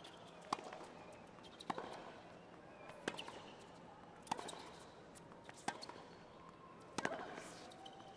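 Tennis ball struck back and forth by rackets in a baseline rally on a hard court: a sharp pop about every 1.3 seconds, six in all, with fainter ticks between them.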